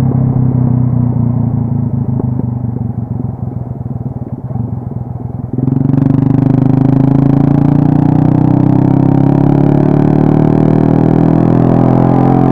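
Modenas Kriss motorcycle engine and exhaust under way. About halfway through, the sound jumps suddenly louder as the throttle opens, then rises steadily in pitch as the bike accelerates.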